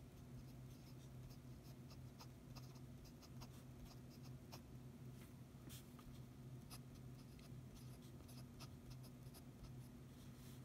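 Fountain pen nib scratching on paper in many short strokes, handwriting, faint. A steady low hum sits underneath.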